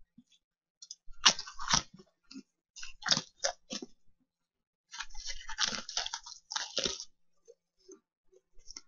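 Dry crackers being crunched and chewed by mouth, in irregular clusters of crunches with short pauses between them.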